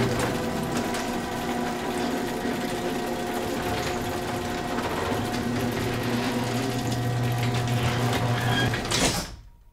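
Steel roller shutter door rolling down: a continuous rattling of the metal slats with a steady low hum underneath, stopping abruptly near the end.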